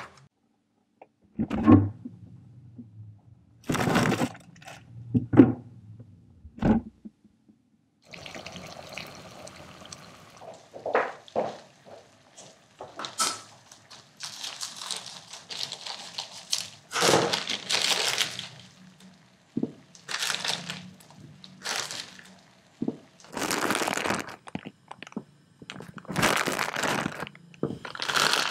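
A few separate knocks, then a steady hiss of water heating in a saucepan on a portable gas stove. Over it, a plastic bag of bakso meatballs is snipped open with scissors and the meatballs are dropped into the water, with plastic crinkling and splashes.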